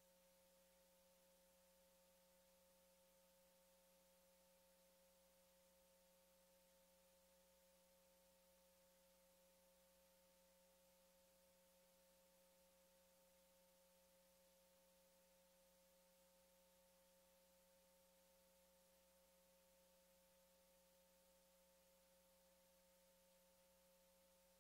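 Near silence: a very faint steady hum of a few held tones over low hiss.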